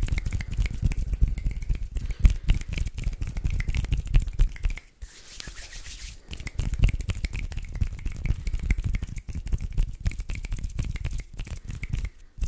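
ASMR hand sounds close to a sensitive microphone: palms rubbing and fluttering quickly in a dense run of soft rasps and pats, easing to a quieter hiss for a moment about five seconds in.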